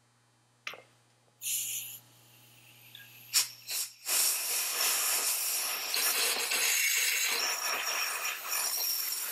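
Compressed-air blow gun blasting air into a freshly reamed valve guide of a VW 8v cylinder head to clear out brass shavings: a short blast about a second and a half in, a couple of knocks, then a long steady hiss of air from about four seconds on.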